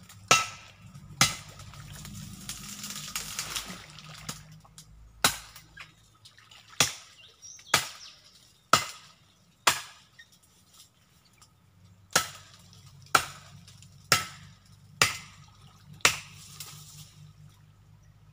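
Repeated sharp chopping or knocking strikes, about one a second in two runs, each with a short ringing tail. Water splashes about two to four seconds in.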